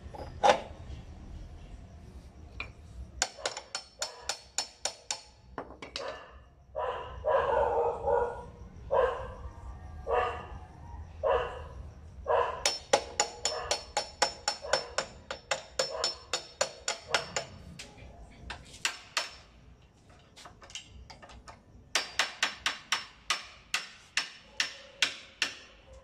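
A hammer strikes metal on a motorcycle's front end in runs of quick blows, about four or five a second. A dog barks several times between the runs, from about six to twelve seconds in.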